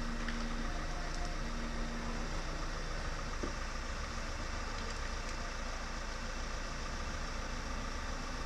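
An engine idling steadily, with a low steady tone that cuts off about two seconds in.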